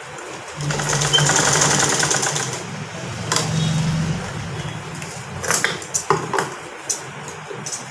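Sewing machine stitching in two short runs, a fast one of about two seconds and a shorter one about three and a half seconds in, putting several reinforcing stitches over the overlapped ends of an elastic band. A few light clicks follow near the end.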